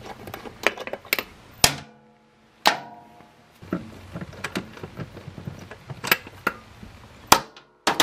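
Scattered sharp metallic clicks and clinks of hand tools and metal parts being handled at a motorcycle's rear wheel, two of them ringing briefly.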